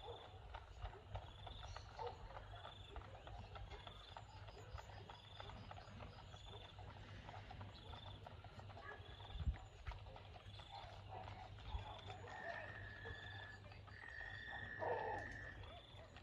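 A small animal's short high chirp repeating evenly, about three every two seconds, over a faint steady hum. A dull thump comes about nine seconds in, and a steady whistle-like tone sounds twice near the end.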